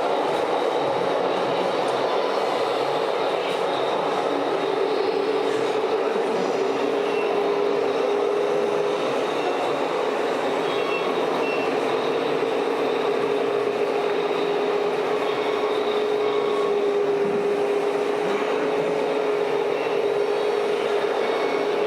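Radio-controlled model trucks and construction machines running, a steady motor whine over general noise, with a few short high beeps.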